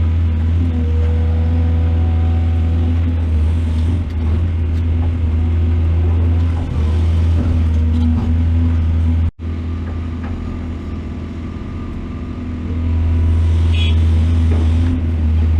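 Heavy diesel engine of a mining excavator running with a steady low drone. It cuts off abruptly about nine seconds in, comes back quieter, then rises again near the end.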